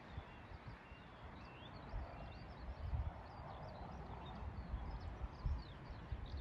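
Pasture ambience: many small birds chirping in the background, over irregular low rumbles and thumps of wind buffeting the microphone.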